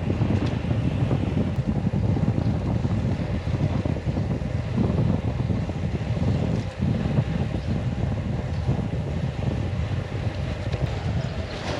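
Wind buffeting the microphone of a camera riding along on a road bike at speed, a steady low rumble.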